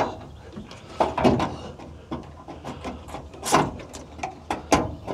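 Irregular light clicks and knocks of bolts being fitted by hand through the mounting holes of a 12-volt air-conditioner blower unit on a metal cab wall.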